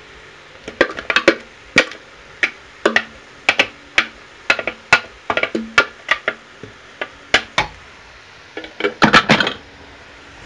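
Wooden spoon knocking and scraping chopped parsnips out of a food processor bowl into a stainless steel saucepan: a string of sharp knocks, about two a second, with a quicker cluster near the end.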